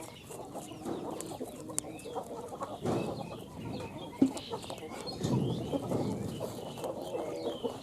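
Chickens clucking on and off, with small birds chirping.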